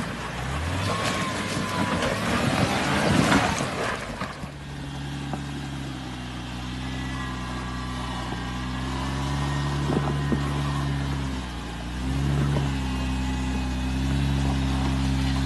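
Jeep Wrangler engine running steadily at low revs as it crawls up a rock ledge. The revs dip briefly about two-thirds through, then settle back. Over the first four seconds there is a noisy crunching and scraping of tyres on rock.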